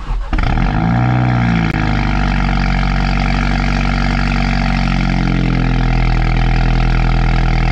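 Cold start of a 2016 Mini John Cooper Works (F56) turbocharged four-cylinder through its JCW Pro exhaust with the valves open. The engine catches about a third of a second in, the revs flare up and fall back within about a second and a half, and it then settles into a steady, loud idle.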